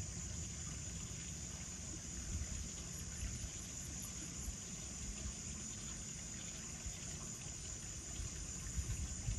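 Steady high-pitched chorus of night insects, with a low rumbling noise beneath it.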